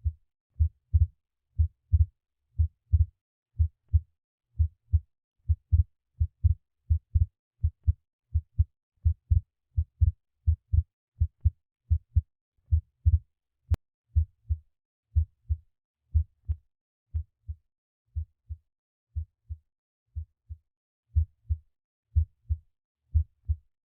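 Heart sounds from the iPax auscultation trainer: paired lub-dub beats repeating about once a second, with one sharp click a little past halfway. The beats grow softer for a few seconds in the second half, then come back louder near the end.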